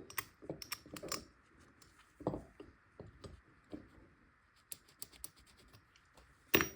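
Irregular small metallic clicks and taps of a 12-point steel fastener and tool being handled and fitted together, with a louder, sharper click near the end.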